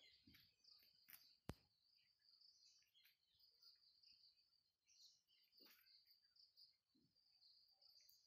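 Near silence: quiet rural outdoor ambience with faint, high, broken chirping, and a single sharp click about a second and a half in.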